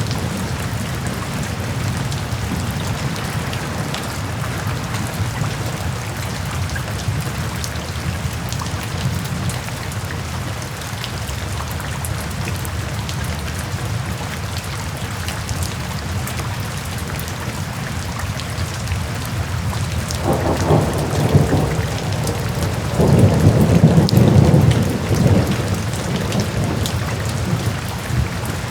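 Steady rain falling, with two low rolls of thunder in the last third, the second longer and louder.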